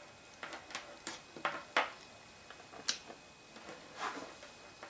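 Light clicks and rustles of multimeter test leads being handled on a table top: a quick run of small taps, one sharper click about three seconds in, and a brief rustle near the end.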